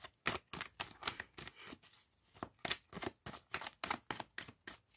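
Tarot cards being shuffled by hand: a run of short, irregular card slaps and snaps, several a second.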